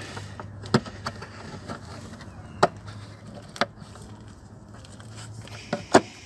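Sharp plastic clicks and knocks as hands work hoses and plastic clips loose under a car, about five separate strikes over a steady low hum, the loudest a close pair near the end.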